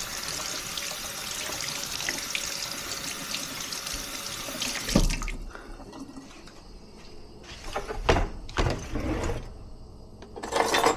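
Kitchen tap running into a sink as food is rinsed under it. The water shuts off about five seconds in, followed by a few knocks and clatters.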